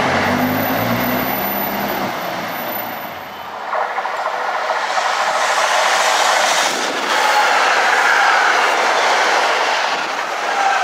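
NJ Transit Arrow III electric multiple-unit train passing close on the near track: a steady loud rush of wheels on rail with faint wheel squeals. In the first three and a half seconds there is instead a low rumbling hum, which breaks off.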